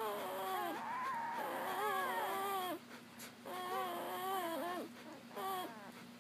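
Newborn Papillon puppies whining while nursing: wavering, drawn-out cries one after another, with a short break about halfway through.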